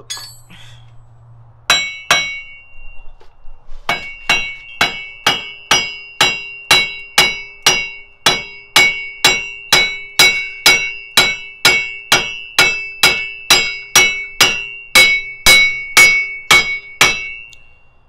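Hammer blows on a truck's front wheel hub assembly: two strikes, then a steady run of about two blows a second, each ringing like struck metal, as the unbolted hub is knocked out of the steering knuckle.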